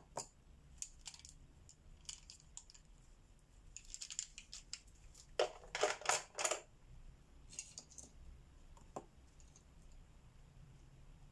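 Coloring by hand on a coloring-book page: scattered light clicks and taps of the coloring tool, with a quick run of about five louder scratchy strokes a little past the middle.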